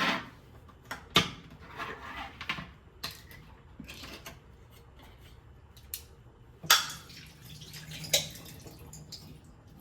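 Kitchen work with dishes and utensils: a series of separate sharp clinks and knocks, the loudest about a second in and twice near the end, with softer handling noises between.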